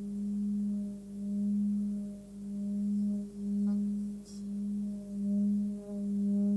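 Forged Sun Moon singing bowl, 18 cm, holding a steady hum at about 205 Hz (G sharp) that swells and fades about once a second, as its rim is rubbed with a felt-covered mallet.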